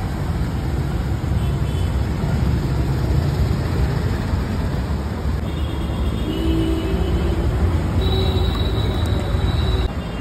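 Steady low rumble of street traffic, with a faint high steady tone for about two seconds near the end.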